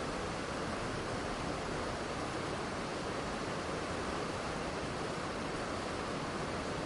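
Waterfall: falling water making a steady, even rushing hiss with no change.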